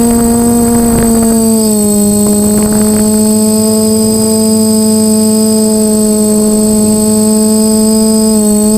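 DJI F450 quadcopter's four motors and propellers whining steadily in flight. The pitch dips slightly about two seconds in as throttle eases, then climbs back near the end.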